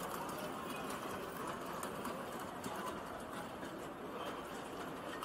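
Steady rattle of a hand-pulled cart's small wheels rolling over stone street paving, against general street noise.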